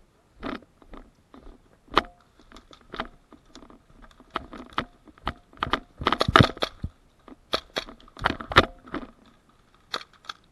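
Irregular sharp cracks, clicks and crunching during airsoft play, with a dense rapid run of them about six seconds in and another loud cluster near eight and a half seconds.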